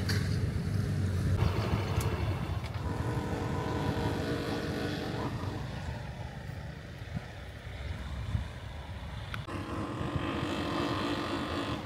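A vehicle engine running close by, with a low rumble that fades over the first couple of seconds, then a steadier engine tone that comes and goes.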